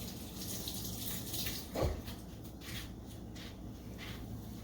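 Water running from a kitchen tap and splashing in a sink, as when hands are washed. There is a single low thump about two seconds in.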